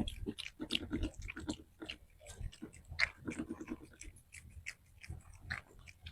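A pet chewing food, heard as a quick, irregular run of small clicks and smacks.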